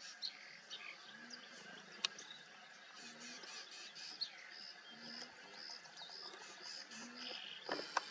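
Wild birds calling: a short high note repeated about twice a second, with a low note every two seconds or so. A few sharp clicks break in, the loudest near the end.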